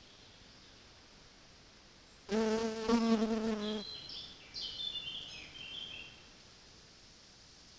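A flying insect buzzing close to the microphone for about a second and a half, a steady low drone with a slight waver. It is followed by a few faint, short, high-pitched chirps.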